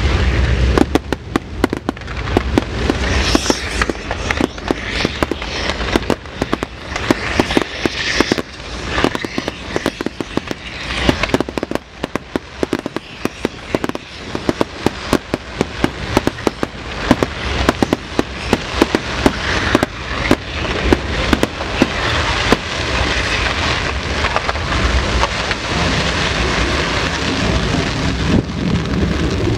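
Fireworks display: a dense, irregular barrage of sharp bangs and crackles, many per second, over a hissing rush. The crackle thickens into a steadier roar in the last several seconds.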